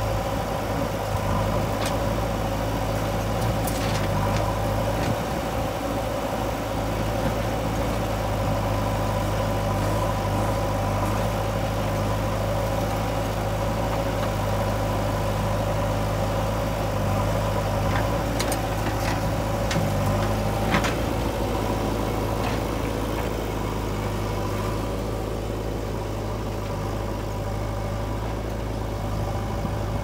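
Diesel engines of a backhoe loader and tractor running steadily through a mud-loading job, with a few short knocks, most of them around the middle.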